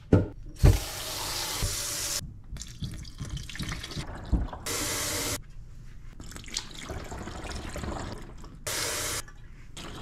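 Kitchen faucet running into a plastic pitcher in a stainless steel sink as it fills with water, in several stretches that start and stop. There is a single thump about a second in.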